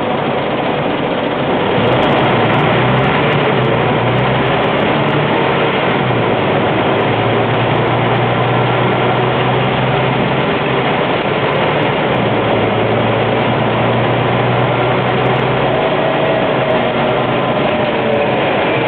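Scania N94UB single-deck bus's rear-mounted five-cylinder diesel heard from inside the cabin. It grows louder about two seconds in and holds a steady drone with a few light rattles, then eases off near the end.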